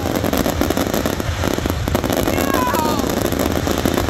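Fireworks going off: dense crackling and popping, many rapid small bangs over a steady low rumble.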